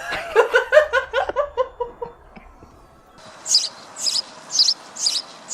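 A person laughing in a quick run of falling 'ha's. After a short pause come high, sharp bird chirps, repeating about twice a second over a faint hiss.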